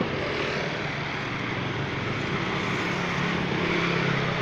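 Street traffic passing, with a small engine's steady note coming in about halfway and growing a little louder.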